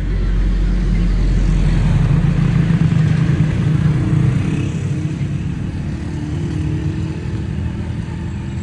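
Passing road traffic: a motor vehicle's engine rumble that swells over the first few seconds and then slowly fades as it goes by.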